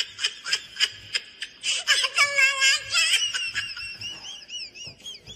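High-pitched human laughter in quick bursts, with a longer held cry about two seconds in.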